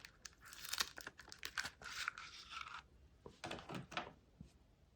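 Packaging of a Samsung 970 EVO Plus SSD being torn open and rustled during unboxing, with a few short crackles and clicks near the end.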